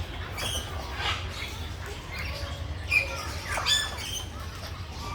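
Birds calling: a few short squawks and chirps with quick pitch glides, over a steady low rumble.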